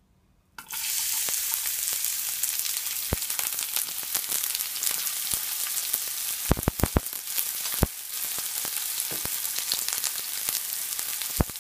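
Chopped onion frying in hot oil in a nonstick pan: a sizzle that starts suddenly about half a second in as the onion hits the oil and then carries on steadily, with a few sharp clicks near the middle.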